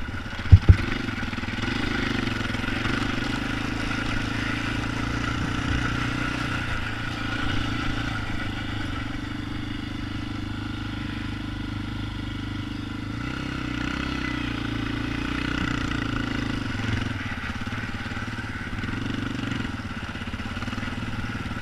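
ATV engine running at a steady speed without revving, with one sharp knock about half a second in.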